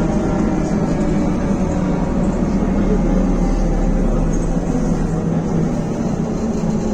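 Interior of a BKM-321 trolleybus under way: the electric traction drive hums and whines in several steady tones over tyre and road noise.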